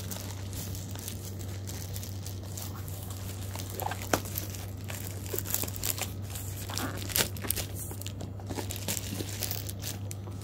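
Plastic courier mailer bag being crinkled and torn open by hand: irregular crackling with a few sharper snaps.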